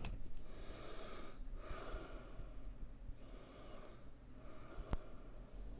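A man breathing audibly through his nose close to the microphone: about four slow breaths, with a faint click shortly before the end.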